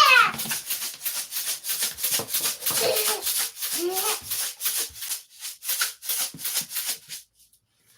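Rapid rhythmic rattling strokes, about five a second, that stop suddenly about seven seconds in.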